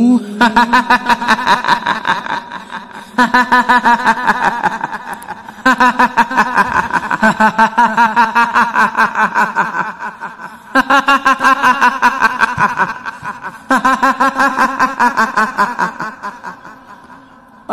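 A high-pitched woman's cackle, the 'hihihi' laugh of a kuntilanak ghost: five bouts of rapid cackling, each trailing off.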